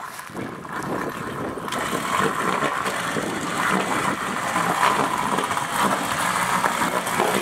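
A quad ATV's engine running hard as the machine churns through deep mud and water, its spinning wheels throwing up spray. The sound swells about two seconds in and then holds at full effort.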